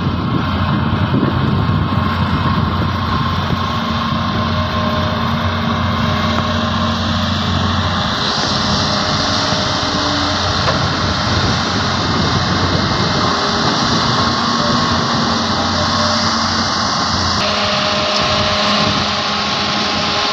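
Diesel engines of hydraulic excavators running steadily while digging sand and loading a dump truck.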